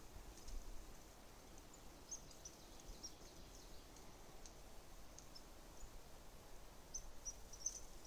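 Near silence: quiet forest ambience with scattered faint, short, high chirps.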